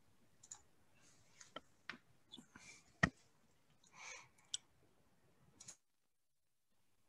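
Faint, scattered clicks from a computer mouse and desk, about a dozen of them at uneven gaps, the sharpest about three seconds in, with a short rustle a second later.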